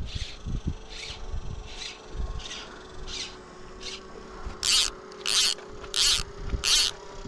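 Fly line being stripped in through the rod guides by hand in short, even pulls, each pull a brief rasping hiss, about one and a half a second. The pulls grow louder from about halfway through.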